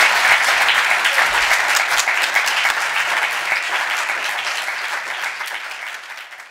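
Audience applauding after a talk, a dense, even clapping of many hands that slowly fades toward the end.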